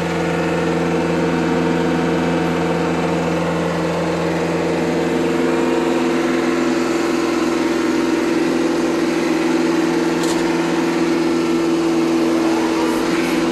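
TYM tractor's diesel engine running steadily under load, driving a bush hog rotary cutter, heard from inside the tractor cab. A faint whine rises in pitch near the end.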